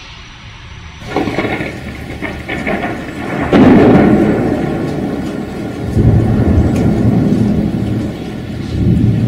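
Thunder rumbling over steady rain. The rumble builds from about a second in to its loudest clap about three and a half seconds in, then swells again about six seconds in and near the end.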